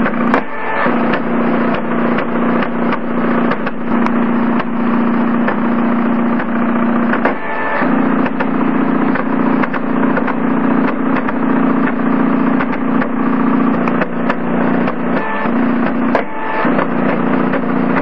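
Stepper motors of a homemade blue-diode laser engraving plotter humming steadily as they drive the laser head through the lettering of a burned name. The hum breaks off briefly a few times as the motion changes, with many small clicks throughout.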